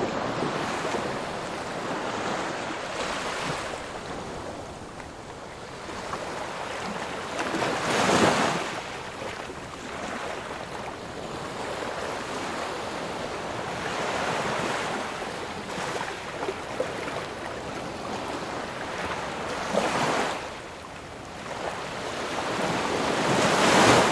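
Ocean waves breaking and washing on a shore: a continuous surf wash with three louder breakers, about 8 seconds in, about 20 seconds in, and near the end.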